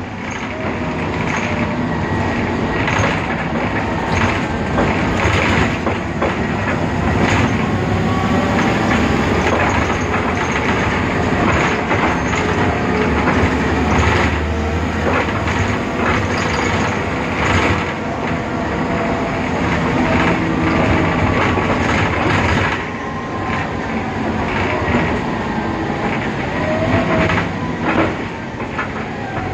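Ride noise inside a BredaMenariniBus Avancity Plus city bus under way: its Deutz diesel engine and ZF 6HP Ecomat automatic gearbox run continuously, with frequent knocks and rattles throughout and faint gliding whines. It eases slightly in level about three quarters of the way through.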